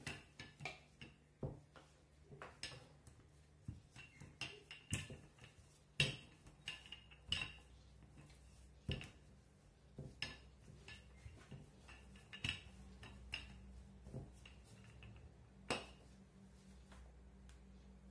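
Wooden rolling pin knocking and clacking against the work surface while rolling out a sheet of dough: an irregular run of light knocks, the loudest about six seconds in.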